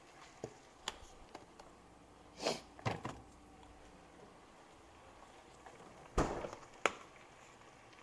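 Kitchen handling noises as a sauce bottle and a seasoning shaker are swapped at the stove: a few light clicks, then short clatters and knocks, the loudest about two and a half and six seconds in, with a last click near the end.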